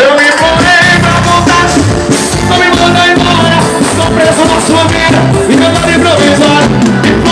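Live forró band with a lead singer, played loud over the stage sound system and heard from within the concert crowd.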